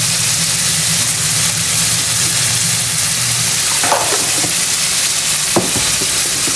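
Chicken drumsticks and thighs frying in oil in a wok: a steady sizzle, with a low hum underneath and a single sharp click about five and a half seconds in.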